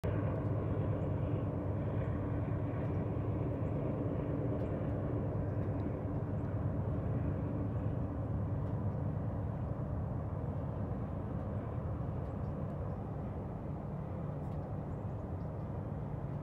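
Distant Norfolk Southern freight train's diesel locomotives rumbling steadily across the lake, easing slightly as the train moves along.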